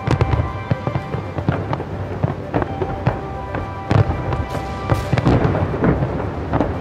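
Aerial fireworks shells bursting in rapid, overlapping bangs and crackles, the heaviest about four and five seconds in, over music.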